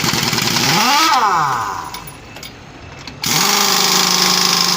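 A power tool running in two goes: first it speeds up and slows down again, then about three seconds in it starts suddenly and runs at a steady pitch.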